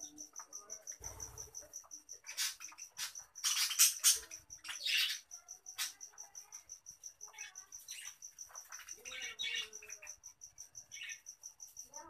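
Budgerigar flock chattering and calling, with harsh squawks loudest between about two and six seconds in. A steady, fast-pulsing high trill runs underneath throughout.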